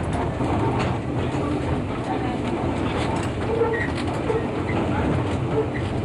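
Vintage electric museum tram running along the track, heard from on board: a steady rumble with scattered clicks from the wheels on the rails.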